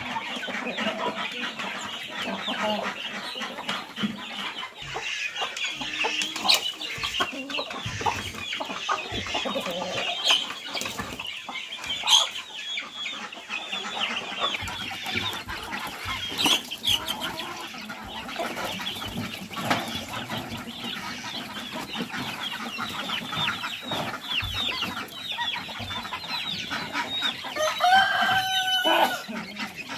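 A flock of chickens clucking and calling as they feed, a steady jumble of short high calls. A louder drawn-out call stands out about two seconds before the end.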